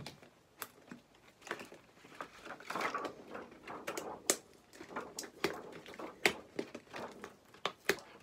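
Toy packaging being opened by hand: irregular crinkling and rustling with a string of sharp clicks and taps.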